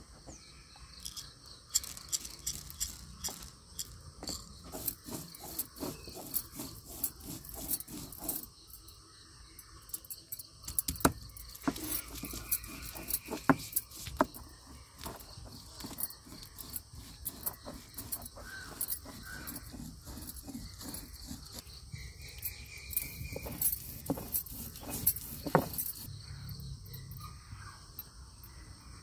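Stone roller knocking and scraping on a flat grinding stone (ammikallu) as garlic, ginger and spices are crushed into a paste, in a quick irregular run of knocks. Crickets trill steadily in the background and stop near the end.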